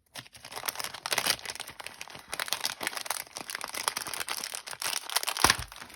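Paper ephemera cut-outs rustling and crinkling as they are handled and leafed through, with a sharper click near the end.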